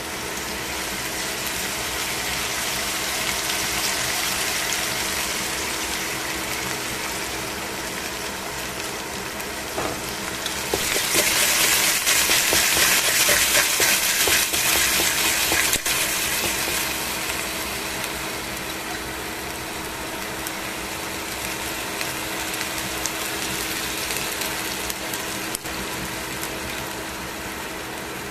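Chicken wing pieces sizzling as they fry in a stainless steel pan. The sizzle grows louder and crackles for about five seconds partway through as the pieces are moved and turned, then settles back to a steady fry.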